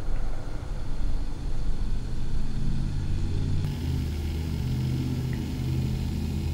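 Rhino ROV motorized camera slider's motor driving the camera along its track on a 20-second move: a steady low hum whose pitch shifts a little about two and four seconds in.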